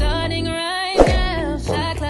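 Background song with a sung vocal line over a bass-heavy beat, with a deep kick drum at the start and again about a second in.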